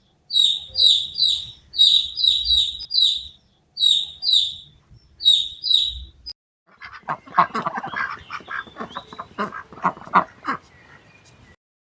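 A bird chirping in quick runs of short, high calls for about six seconds. About seven seconds in, a group of ducks starts quacking in a dense clatter.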